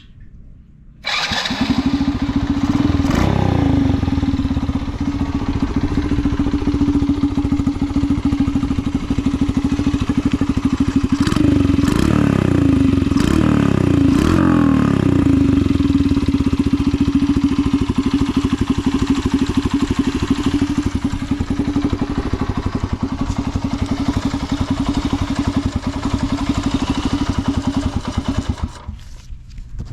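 Bored-up Honda Magna 50's four-stroke single-cylinder engine starting about a second in and idling steadily, with a few throttle blips along the way, before it shuts off near the end. The seller reports it runs without abnormal noise.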